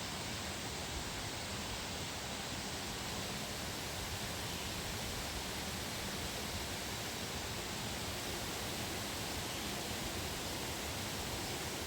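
Steady, even rushing of flowing water from a forest stream or waterfall.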